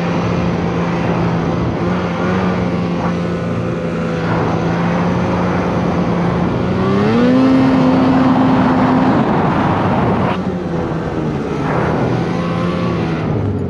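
Snowmobile engine pulling hard as the sled climbs through deep powder, a steady drone that rises in pitch about seven seconds in, holds for a couple of seconds, then settles back.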